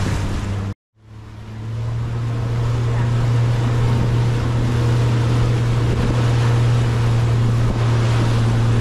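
Boat engine running at a steady low drone, with wind and water noise over it. It drops out briefly about a second in, then builds back up and holds steady.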